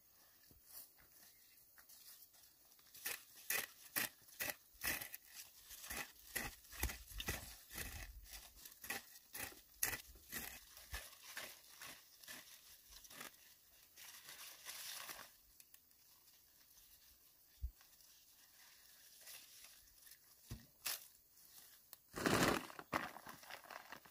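A hoe chopping into and scraping loose soil, about two or three strokes a second, drawing earth up around a young plant's base. Near the end, a plastic sack rustles loudly.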